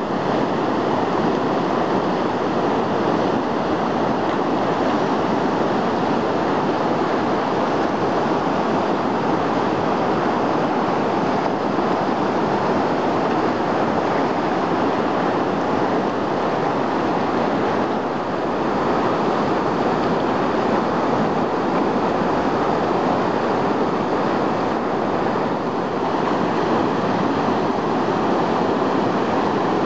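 Whitewater of a river rapid rushing steadily, an unbroken wash of water noise.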